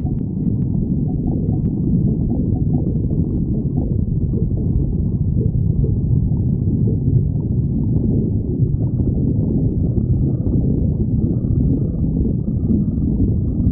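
A person's stomach growling: a continuous low rumble that carries on without a break.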